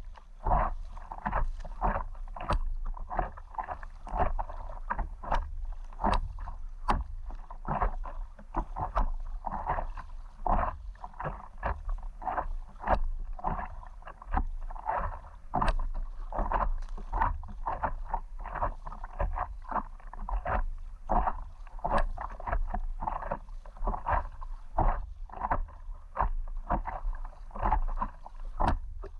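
Paddle strokes and water splashing around an inflatable stand-up paddleboard: quick repeated splashes, about two a second, over a steady low rumble.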